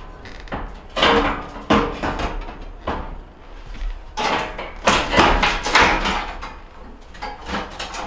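Gas range's cooktop panel being fitted onto its rear hinges and lowered into place: a series of irregular clanks and knocks, a few with a short metallic ring.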